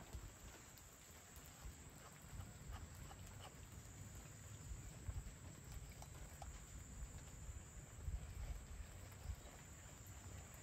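Faint outdoor ambience: a low, uneven rumble that swells now and then, with scattered faint ticks.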